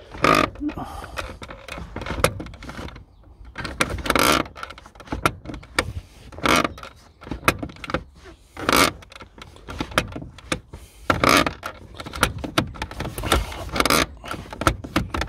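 Irregular clicks, knocks and rustling of hands and tools working at the handbrake cable adjuster and trim inside a car's centre console, while the adjuster is tightened to take up slack in the cables. The knocks come unevenly, several seconds apart at most, with no steady rhythm.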